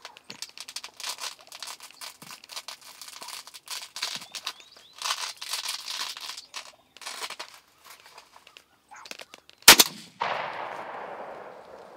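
A run of short turkey clucks and purrs, then a single loud shotgun blast about ten seconds in, followed by the shot gobbler flopping and beating its wings on the grass.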